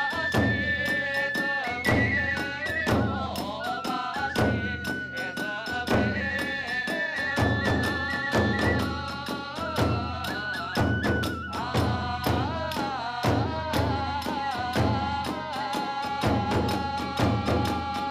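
Hiroshima kagura accompaniment: a bamboo flute plays a held, stepping melody over steady beats of a large drum and rapid, continuous clashes of small hand cymbals.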